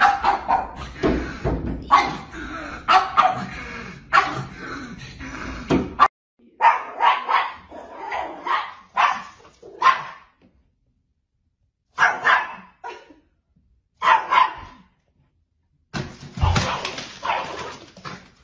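Dogs barking in runs of short, sharp barks, in several bouts with brief silent pauses between them.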